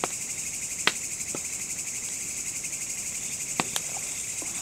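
A dense chorus of crickets chirring steadily at a high pitch. A few sharp clicks cut through it, the loudest about a second in and again after three and a half seconds.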